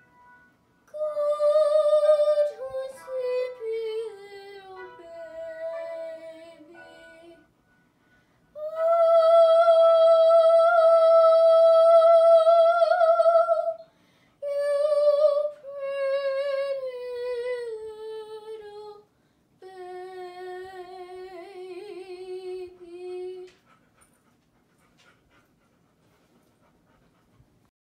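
A young girl singing a song solo, with no accompaniment heard, in four phrases with vibrato: the first and third phrases step downward, the second is one long held high note, and the song ends about 23 seconds in.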